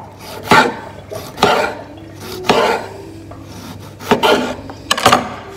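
Chef's knife slicing a tomato on a wooden cutting board: about five slicing strokes, roughly a second apart.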